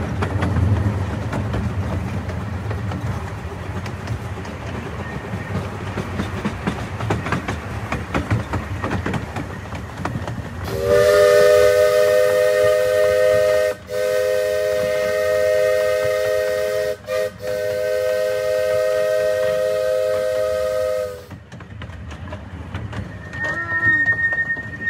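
Miniature live-steam locomotive running along the track, then its steam whistle sounding a long chord of several notes for about ten seconds, broken by two or three brief gaps, before the plain running noise of the train returns.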